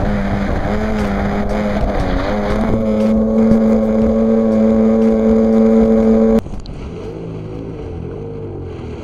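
Two-stroke jet ski engine running at speed, its pitch wavering at first and then holding steady at high revs. About six seconds in, the sound drops abruptly to a quieter, lower engine note with water and wind noise.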